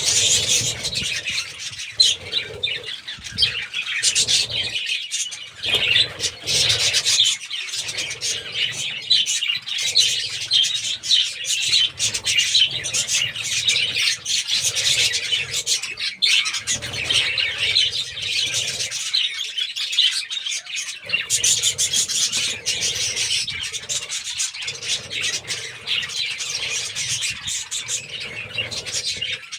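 A colony of many budgerigars chattering and chirping all at once, a dense, unbroken stream of rapid high chirps.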